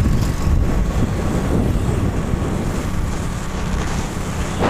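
A motorcycle underway: wind buffeting the microphone over the steady low rumble of the ride.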